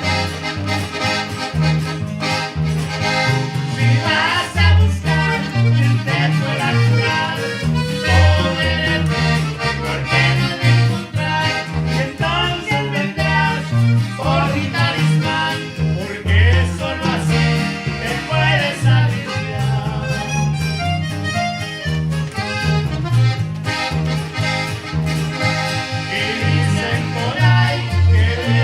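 Norteño band playing live: accordion leading an instrumental passage over guitar and a bouncing bass line.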